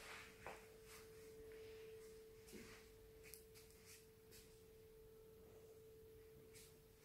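Near silence: room tone with a faint steady hum on one pitch and a few faint clicks.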